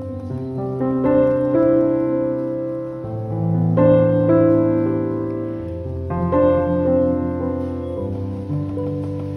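Background piano music: slow held chords that change every second or two.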